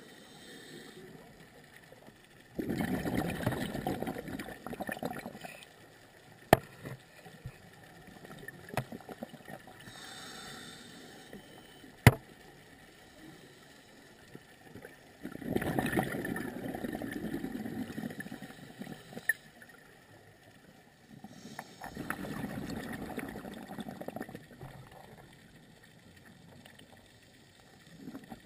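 A scuba diver breathing through a regulator underwater: three bursts of exhaled bubbles gurgling past, each two to three seconds long, with a faint intake hiss in the quieter gaps between them. Two sharp clicks fall between the first and second exhalations.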